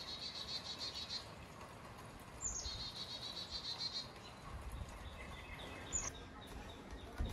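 A songbird singing: a high falling note followed by a rapid trill, heard twice. Later come faint short chirps over a low rumble, and a single thump near the end.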